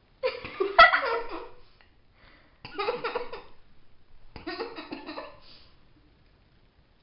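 A person laughing in three bursts, with short pauses between.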